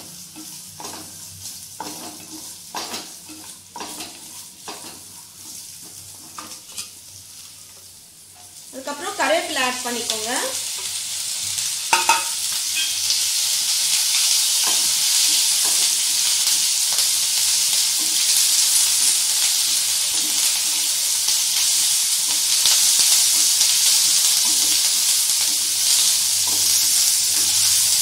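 Coconut pieces and cumin frying in oil in a frying pan, stirred with a wooden spatula in separate scraping strokes. About halfway through, fresh curry leaves go into the hot oil and a loud, steady sizzle takes over.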